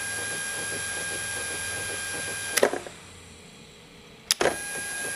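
Small robot drive motors running with a steady high whine and a rattle. A toggle switch clicks about two and a half seconds in and the motors stop; a second click shortly before the end starts them running again.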